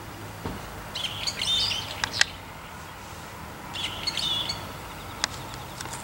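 Bird chirping in two short bouts of quick, high notes, the first about a second in and the second around four seconds in. Two sharp clicks come between them, the first being the loudest sound.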